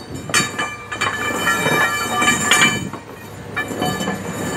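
Steel pipe rollers and crowbars clanking and ringing against each other and the concrete floor, with metal scraping and rumbling, as a steam boiler is levered and rolled over the pipes.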